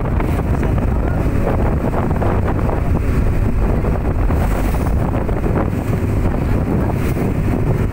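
A boat's engine running steadily with a low drone, mixed with wind buffeting the microphone and the rush of sea water.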